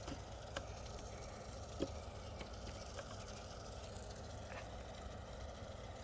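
A few faint, scattered taps and scrapes of a screwdriver tip working at a piece of wood, over a steady low background hum.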